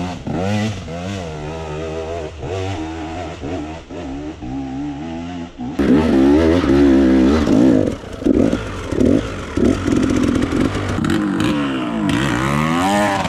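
Two-stroke KTM EXC enduro dirt bike engine revving up and down under riding, its pitch rising and falling with the throttle. About six seconds in it gets louder, with a run of short, quick throttle blips.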